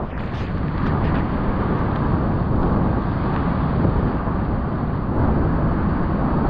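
Steady rushing of whitewater rapids on the Potomac at Great Falls, an even noise heaviest in the low end with no distinct events.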